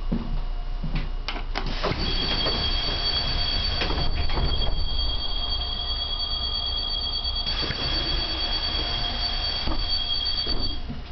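Renault City Bus door warning tone sounding steadily for about nine seconds while the pneumatic door is worked, with a rush of air from the door mechanism joining partway through. A few clicks come just before the tone starts.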